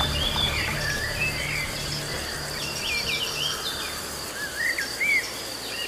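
Outdoor nature ambience: a steady, high-pitched insect trill with birds singing short chirps and rising and falling whistled notes scattered through it.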